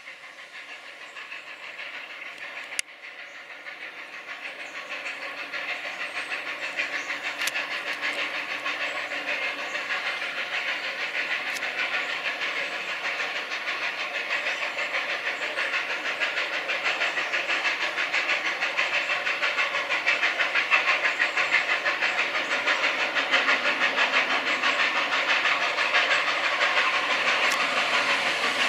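Puffing Billy narrow-gauge steam locomotive working along the line, its rapid exhaust beats and hiss growing steadily louder as it approaches. A single sharp click about three seconds in.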